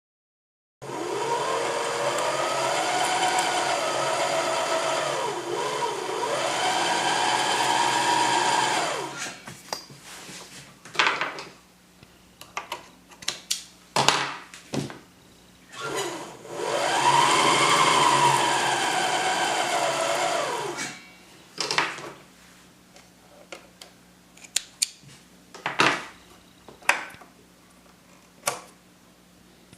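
Singer Merritt free-arm sewing machine running in two long runs, its motor speeding up and slowing down, with scattered clicks and knocks between and after the runs.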